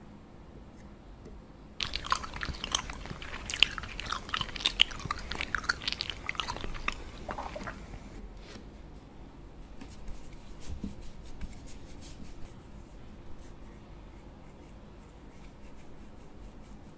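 Close, crunchy crackling and clicking starts about two seconds in and stays dense for about six seconds. Fainter, scattered ticks follow.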